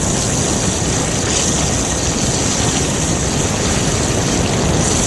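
Steady rushing hiss of water jets from fire hoses, over a low rumble. The hiss grows brighter about a second in.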